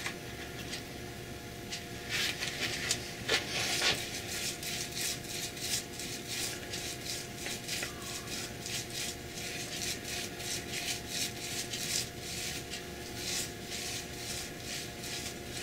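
Paintbrush laying oil paint onto the flat top of a painted wooden speaker box: a quick, continuous run of back-and-forth brush strokes, busier after the first few seconds, over a faint steady hum.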